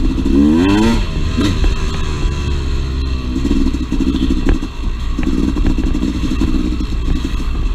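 Two-stroke dirt bike engine on a trail ride. It revs up and down in the first second or so, then runs at a steady low-rpm pace. A single sharp knock comes about four and a half seconds in.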